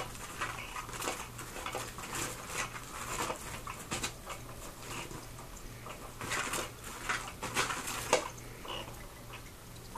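Cats playing with a toy: irregular scratches, taps and scuffles of paws and the toy in quick clusters, with a louder knock about eight seconds in.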